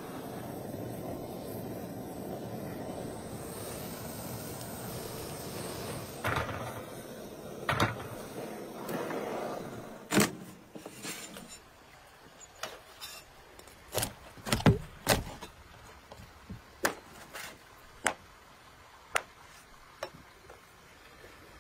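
A meat cleaver chopping a raw whole chicken on a wooden cutting board: about a dozen sharp single chops at uneven intervals, starting about halfway in. Before that comes a steady noise for the first several seconds.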